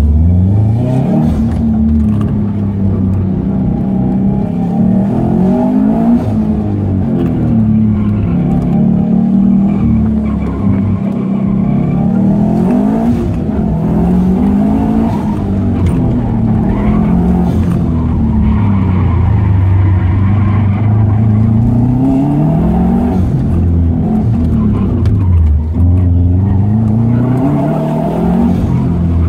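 2006 Subaru Impreza WRX STI's turbocharged 2.5-litre flat-four engine, heard from inside the cabin, revving up and dropping back every few seconds as the car is driven hard through an autocross course.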